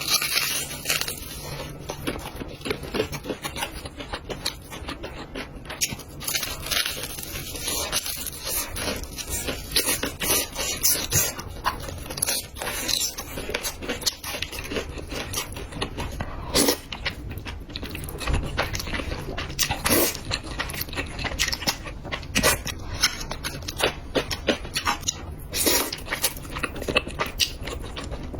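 Close-miked eating sounds of jajang noodles and chicken: continuous irregular chewing, biting and crunching, with wet smacks and clicks.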